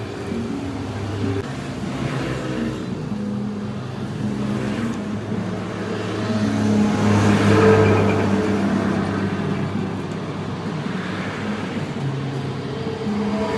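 Road traffic with motor vehicle engines running; one vehicle grows louder and passes about halfway through.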